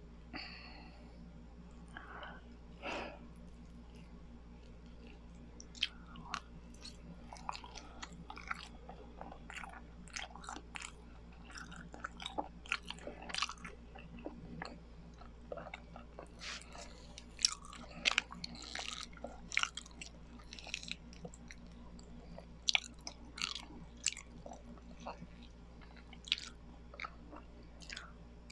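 Close-miked chewing of biko, a sticky Filipino rice cake: wet, sticky mouth smacks and clicks coming irregularly and frequently, busier in the second half.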